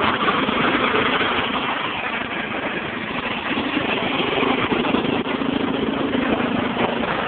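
Riding lawnmower engine running with a steady drone.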